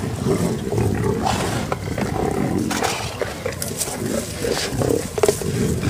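Several lions growling continuously as they feed together on a zebra kill, with a few sharp clicks mixed in.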